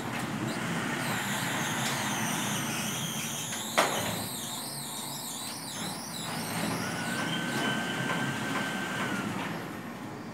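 Automatic bi-folding steel gate driven by an electric operator, its leaves folding: the mechanism runs with a wavering metal squeal, a sharp clank about four seconds in, and a steady high whine for a couple of seconds later on.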